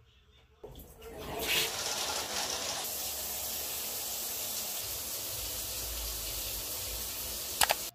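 Shower running: the water comes on about a second in, swells, then sprays steadily, with a sharp click near the end.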